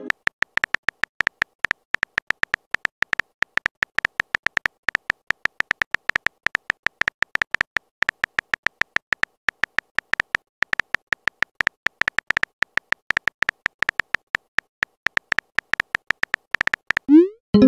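Phone on-screen keyboard typing clicks, a fast, uneven run of short ticks with a high tone, as a text message is typed out. Near the end a short rising swoop and pop: the message-sent sound.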